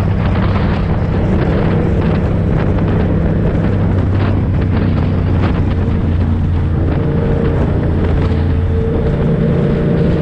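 Yamaha MT-series motorcycle engine running at a steady cruising speed, heard from the rider's seat with wind rushing over the microphone.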